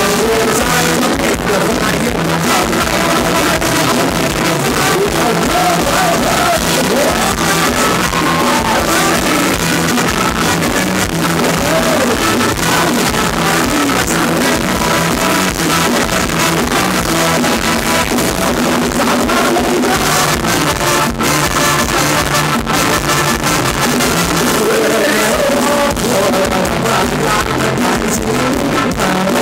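Live band playing upbeat Thai ramwong dance music on drums and guitar, with a man singing over it through the stage PA.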